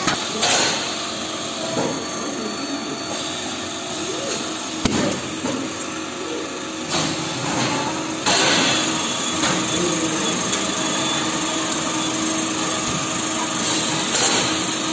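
Steady machinery noise in a date-packing workshop, with a few sharp knocks and faint voices in the background.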